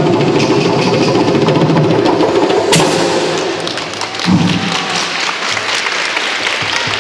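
A group of hand drums playing, with a single sharp knock a little under three seconds in, then a crowd applauding from about halfway through.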